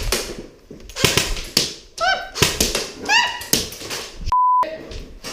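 Irregular sharp cracks of airsoft gunfire, with two short rising shouts around the middle. About four seconds in, a brief single-pitch censor bleep cuts over everything.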